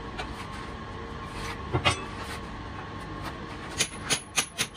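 Sharp metal clinks and knocks from hand tools being handled against the lathe: two about two seconds in, then a quick run of them near the end. Under them is a steady machine hum.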